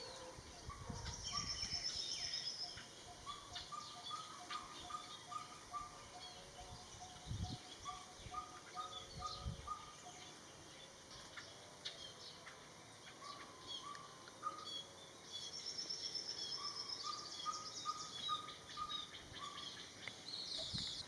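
Mixed garden birdsong: one bird repeats a short note about two to three times a second through the first half, others give runs of higher notes, and a high trill sounds twice.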